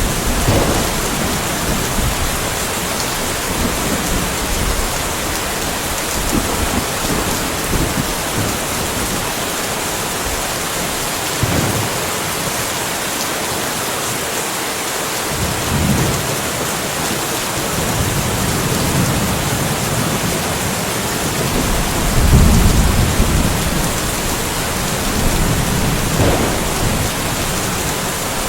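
Steady rainfall hissing, with low rolling rumbles of distant thunder coming and going, the loudest rumble a little after two-thirds of the way through.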